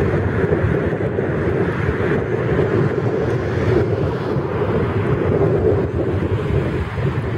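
Heavy thunderstorm rain and wind, a loud steady rushing noise with wind buffeting the microphone.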